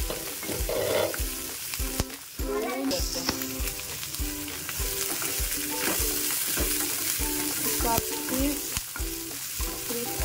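Vegetables sizzling in a little oil in a nonstick pan as they are sautéed, under background music with a steady beat about twice a second.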